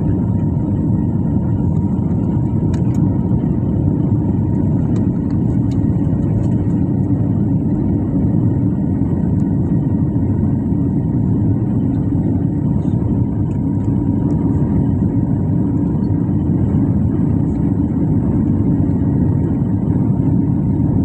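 Airliner cabin noise during the climb after take-off: the engines and rushing air make a steady, loud, low rumble, with a faint steady whine above it.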